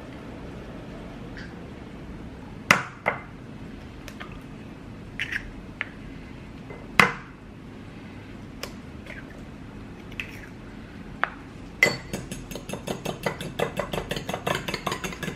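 Eggs being cracked on the rim of a small ceramic bowl, a few sharp separate taps and clicks, then beaten in the bowl, a metal utensil clicking rapidly against the ceramic, about five strokes a second, for the last few seconds.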